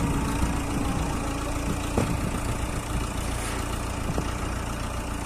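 ACE FX150 hydra crane's diesel engine running steadily. A held tone sounds over it for the first two seconds and ends with a sharp knock; there is a fainter knock about four seconds in.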